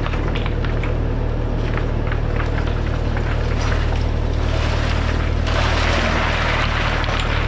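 Compact track loader engine running steadily under a basket of river stones being tipped out: scattered knocks of stones dropping, then a heavier rush of stones sliding and clattering out about five and a half seconds in.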